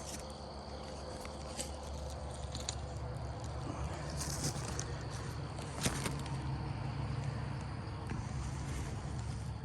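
Steady background noise with a low hum, broken by a few scattered clicks or crunches.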